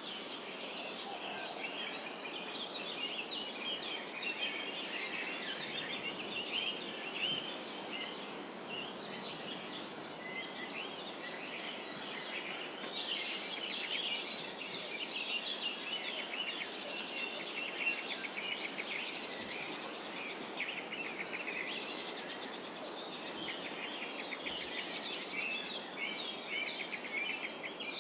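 A chorus of many birds calling and singing at once: rapid, overlapping chirps and trills that carry on without a break, over a steady background hiss.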